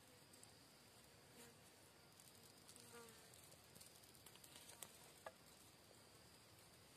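Near silence: faint forest ambience with a steady high insect drone, and an insect buzzing past briefly about three seconds in. A few soft clicks come from twigs being handled at a small, just-lit tinder fire.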